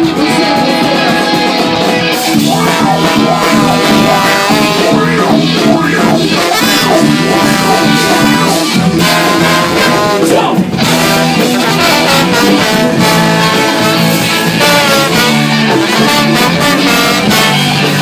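Live ska-punk band playing loudly: electric guitars and drums with a trumpet and trombone horn section.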